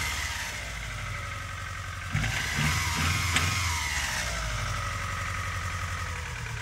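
Mitsubishi 4G37 four-cylinder engine idling unevenly while misfiring, during a cylinder-by-cylinder check for a dead cylinder. The engine note gets louder about two seconds in, and there are a few sharp clicks.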